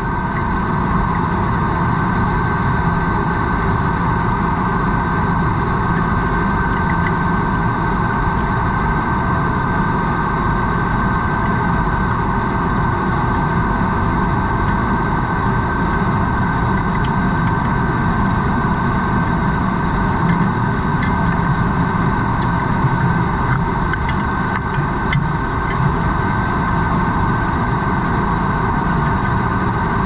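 A steady mechanical drone heard underwater, with a constant whine running through it and a few faint ticks.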